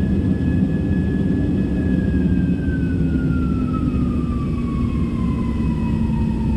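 Jet airliner engines spooling down in the climb: a steady low rumble under a whine that falls slowly and evenly in pitch. This is the thrust reduction from the takeoff setting to the climb setting, not the engines failing.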